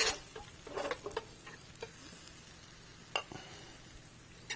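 Pappardelle, shrimp and vegetables sizzling faintly in a hot saute pan with white wine, stirred and tossed with metal tongs. Scattered clicks of the tongs against the pan, the sharpest about three seconds in.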